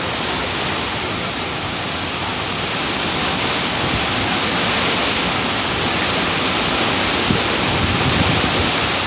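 Hurricane-force wind with driving rain: a loud, steady, dense hiss that slowly grows a little louder.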